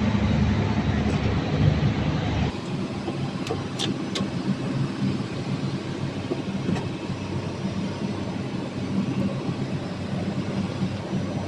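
Steady low machine rumble with a few light clinks. It drops in level suddenly about two and a half seconds in.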